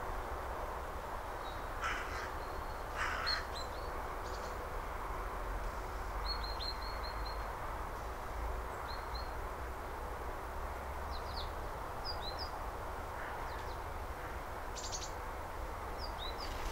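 Distant bird calls over a steady outdoor background: a few short, harsh, crow-like calls about two and three seconds in and again near the end, and scattered high chirps from small birds, with a quick run of them around six seconds in.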